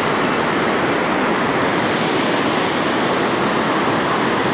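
Steady, loud rush of water pouring through a dam spillway.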